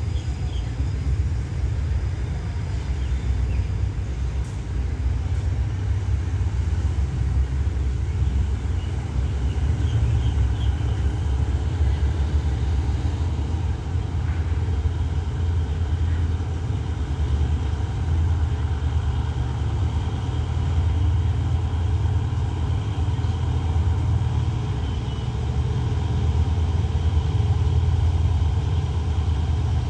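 Steady low rumble of the GEA-class GE diesel-electric locomotive 4543 approaching at low speed while still some way off, growing slightly louder near the end.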